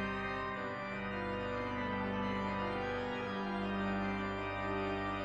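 Background music: sustained organ chords with a held low note, changing chord every second or so.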